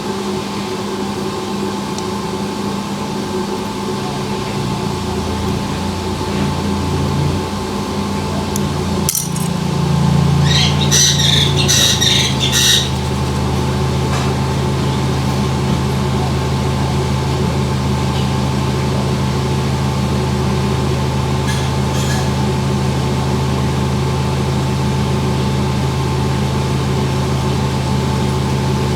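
A small electric grooming tool's motor humming steadily; its pitch shifts for a few seconds and then settles. A short burst of scratchy clicking comes about ten seconds in.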